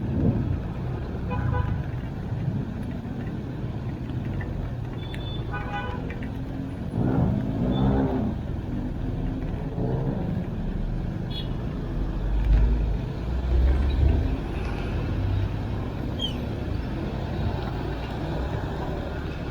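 Road traffic on a wet road: steady vehicle engine and tyre noise, with short car-horn toots near the start and about five to six seconds in, and a louder low rumble of a passing vehicle about twelve to fourteen seconds in.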